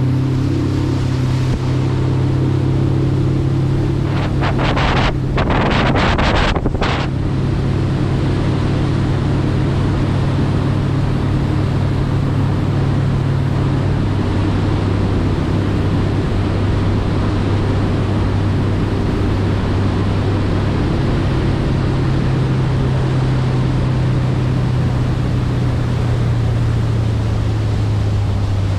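Mercury outboard motor running steadily as the boat cruises under way, with wind and water noise over it. The engine note steps down slightly about halfway through.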